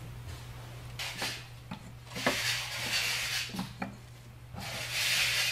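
Metal parts and tools clinking and knocking against the cast iron frame of an old letterpress while it is being taken apart, with two longer rasping scrapes, the second near the end.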